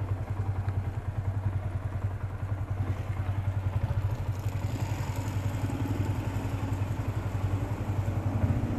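Motorcycle engine idling steadily, a fast even low pulsing.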